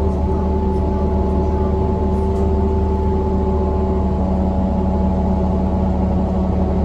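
New Flyer XDE40 diesel-electric hybrid bus under way: a steady whine of several tones over a low engine drone, the sound the uploader calls horrible. The whine has just finished rising and now holds level.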